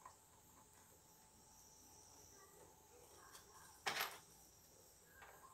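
Plastic control knobs pushed onto an amplifier's potentiometer shafts: a few faint clicks over near silence, the loudest a sharp knock about four seconds in.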